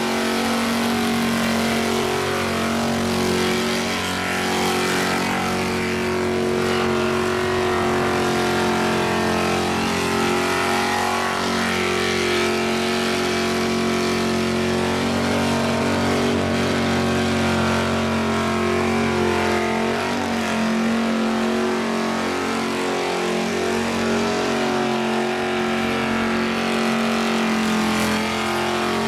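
Holden Commodore doing a burnout, its engine held at high, steady revs the whole time while the rear tyres spin and smoke.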